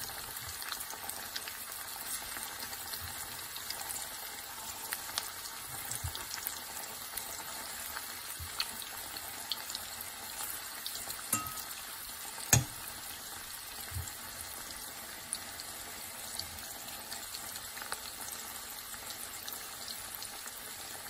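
Chicken keema pakoras deep-frying in hot oil in a pan: a steady sizzle with scattered small pops while more pakoras are added by hand. There is one sharp click a little past the middle.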